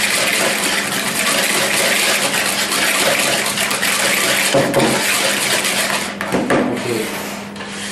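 A hand whisk beating egg yolks and sugar in a bowl: a steady, dense swishing and scraping, with a couple of knocks in the second half, easing off near the end.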